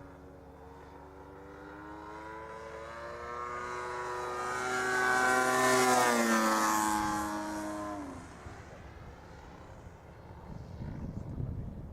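Radio-controlled model aerobatic plane's MLD 35cc two-stroke petrol engine and 20x8 propeller flying past: the engine note builds to its loudest about six seconds in, drops in pitch as it goes by, and fades away by about eight seconds.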